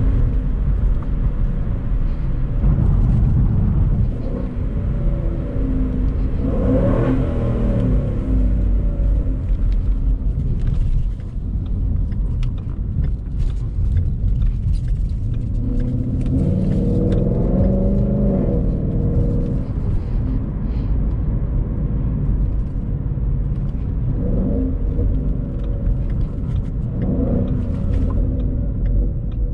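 Ford Mustang GT's 5.0 V8 engine heard from inside the cabin while driving, a steady low rumble with road noise. The engine note rises and swells under throttle about seven seconds in and again around seventeen seconds in.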